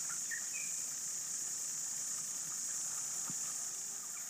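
Steady high-pitched drone of an insect chorus, with a few short faint bird chirps.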